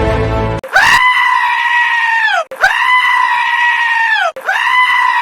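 Three long, high animal cries, one after another. Each rises quickly at the start, holds a steady pitch for about a second and a half, then falls away at the end.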